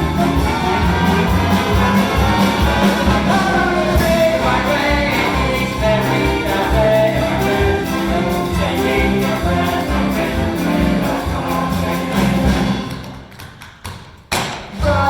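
Jazzy show music with brass and a steady beat. About 13 seconds in it falls away, then a single sharp hit comes just before the music starts again near the end.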